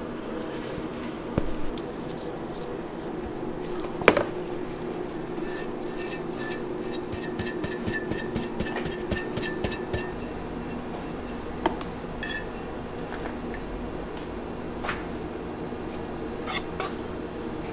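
Cake-decorating tools clinking and scraping against metal: a spatula on a steel pot and bowl, and a palette knife on a metal turntable and tray, as buttercream is scooped and spread on sponge layers. A run of light metallic clinks falls between about 5 and 10 seconds in, with a few sharper knocks, the loudest about 4 seconds in. Under it all is a steady low hum.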